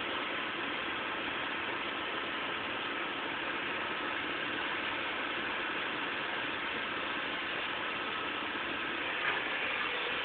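Heavy diesel engine running steadily, with one small knock about nine seconds in.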